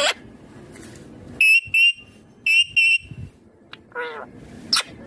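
Ringneck parakeet calling: two pairs of short, shrill squawks in quick succession, then a lower wavering call and a fast rising whistle near the end.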